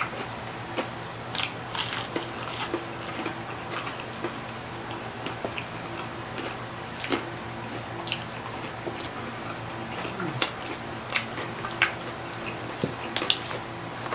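Close-miked eating sounds of crispy fried fish fillet being bitten and chewed: scattered crisp crunches and wet mouth noises, over a faint steady hum.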